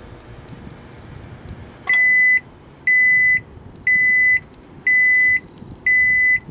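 Microwave oven sounding its end-of-cycle alert: five loud, steady beeps at the same pitch, about one a second, starting about two seconds in, signalling that the heating cycle is done. Before the beeps a low running hum is heard.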